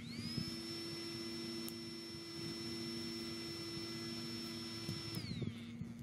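Small electric blower fan of a power-bank-driven mini wood stove speeding up to a high whine at the start, blowing air into the fire. It holds a steady pitch for about five seconds, then winds down near the end.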